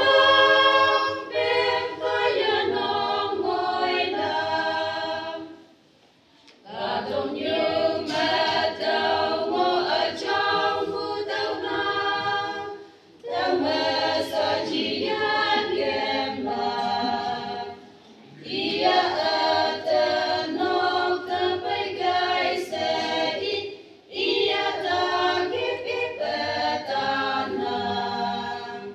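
Women's choir singing a hymn unaccompanied, in phrases broken by brief pauses about every five to six seconds.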